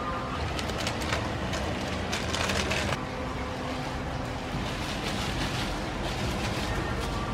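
Gas burner running steadily under a wok of simmering sauce. A metal spatula scrapes and clicks against the wok during the first three seconds.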